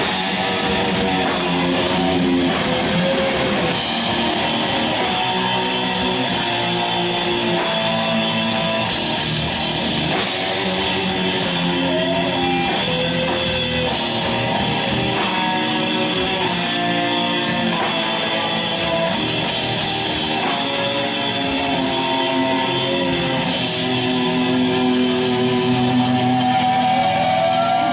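Thrash metal band playing live: distorted electric guitars over drums, loud and continuous.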